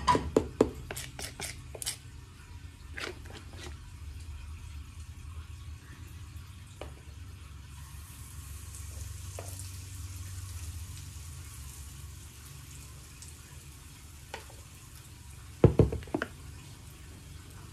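Metal spoon clinking and scraping against a ceramic bowl while stirring thick pancake batter, with a soft hiss about eight seconds in as batter is poured into a hot oiled frying pan. A second quick run of spoon clinks on the bowl comes near the end.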